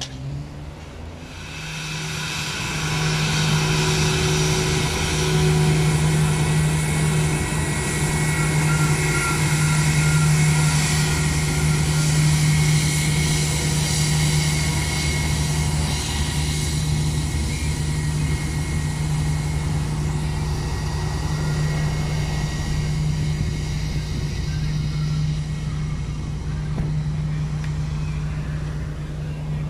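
Airbus A320 jet engines running as the airliner taxis on the runway: a steady low hum under several high whining tones. It comes up about two seconds in, then holds steady.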